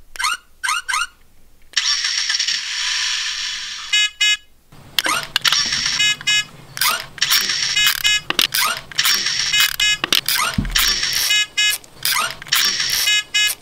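A toy car key's electronic sound effects: a few quick falling chirps, an engine-start rumble lasting about two seconds, then a short beep. From about five seconds in, an even rhythm of clicks and short electronic tones repeats about twice a second.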